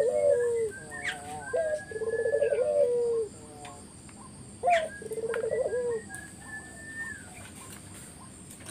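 Puter (Barbary dove) cooing: three rolling, trilled coo phrases a couple of seconds apart, with a steady high insect-like tone and other birds' thin whistles faintly behind.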